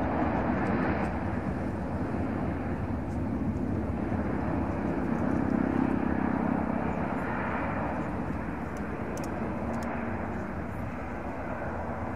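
Boeing 737 airliner's jet engines running at high power as it starts its takeoff roll and moves away down the runway. A steady rushing jet noise with a low hum, slowly fading over the last few seconds.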